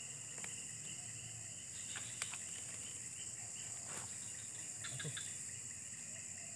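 Steady chorus of insects, a continuous high buzz, with a few faint clicks.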